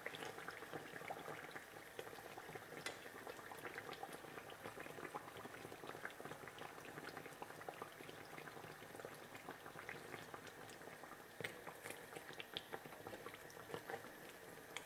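Hot frying oil bubbling and crackling softly around pizza fritta dough in a shallow pan, with scattered light clicks.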